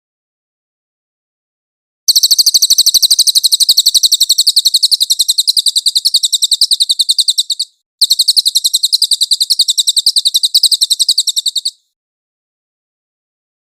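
Cililin songbird singing a loud, rapid, high-pitched trill of evenly repeated notes. It starts about two seconds in, runs for about five seconds, breaks off briefly, and continues for about four more seconds before stopping.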